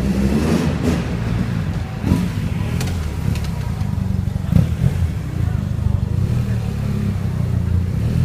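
BMW GS adventure motorcycle engine running at low speed under a stunt rider's throttle, with short revs; sharper bursts come about two and four and a half seconds in.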